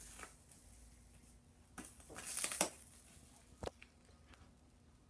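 Metal tool scraping and clicking as it pries mahogany veneer up from hide glue softened with water and heat. A rasping scrape comes about two seconds in, then a single sharp click, with a few light taps around them.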